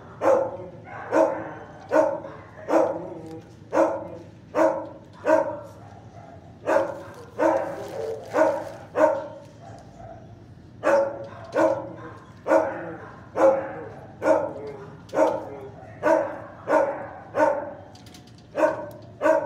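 A dog barking over and over in an echoing shelter kennel room, about three barks every two seconds, with a short break about halfway through.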